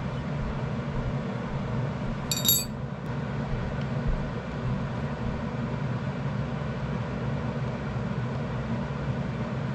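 A single bright metallic clink about two and a half seconds in, a steel hex key knocking against steel parts at the vise, over a steady low hum.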